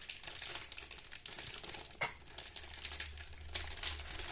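A clear plastic bag around a model kit's two hull halves crinkling and crackling in irregular bursts as it is held and handled.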